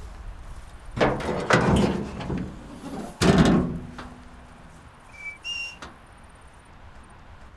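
Clattering and thumps from the back of a pickup truck, with one sudden loud clunk a few seconds in. About two seconds later come two short, thin high whistle notes.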